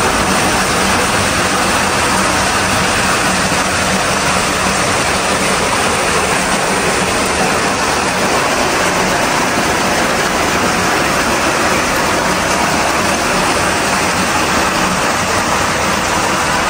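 Hot sulphur spring water flowing out from under the rock into a cave pool: a loud, steady rush of water.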